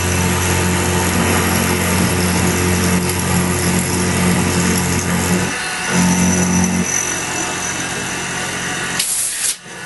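X2 benchtop mini mill running, its spindle motor humming steadily while the end mill cuts around the part. The hum shifts about six to seven seconds in, and near the end there is a short harsh burst followed by a sudden dip.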